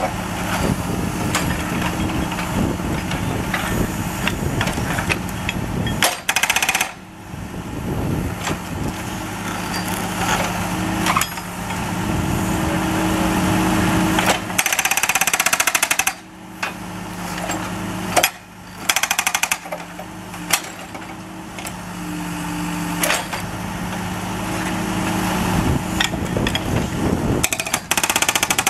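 Hydraulic breaker hammering into asphalt with a rapid stream of chisel strikes, stopping and restarting several times, over the steady drone of the carrier machine's engine. The hammering breaks up the pavement around a drain grate.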